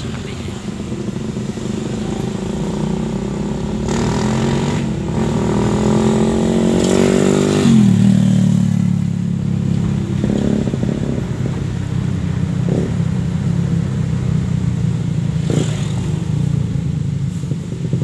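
Vehicle engine running under load, heard from inside a car's cabin. Its pitch climbs for several seconds, drops sharply about eight seconds in, then runs on steadily.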